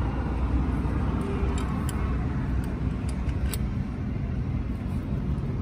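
Steady low mechanical rumble, like a running engine, with a few faint light clicks or taps in the middle.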